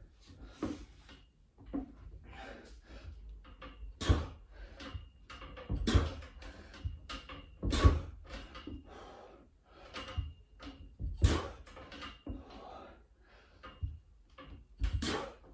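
A freestanding pull-up station knocks and squeaks under a set of five pull-ups, with one loud clunk for each rep about every two to three seconds. Heavy breathing from the effort comes in between.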